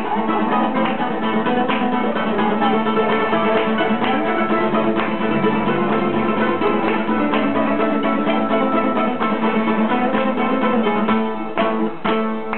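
Several bouzoukia played together live, a fast plucked instrumental tune with a steady drone-like low note underneath.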